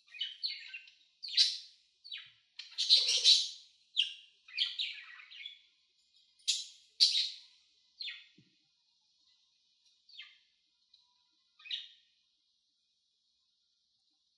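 Pet budgerigars chirping: a quick run of short, high chirps, thinning out to a few scattered calls in the second half.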